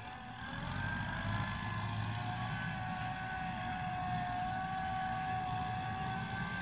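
Tractor engine working under load in a muddy paddy: it speeds up and grows louder about half a second in, then holds steady as a low rumble with a whine on top.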